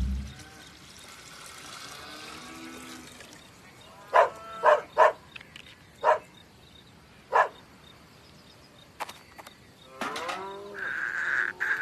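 Animal calls: five short calls spread over a few seconds midway, then a longer call that falls in pitch near the end, joined by a steady high tone.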